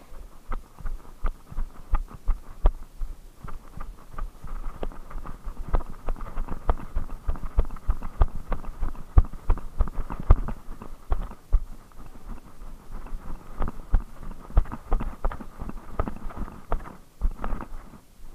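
Quick, irregular footsteps and knocks from a body-worn action camera jostling as its wearer moves through tall dry weeds, with brush rustling against it.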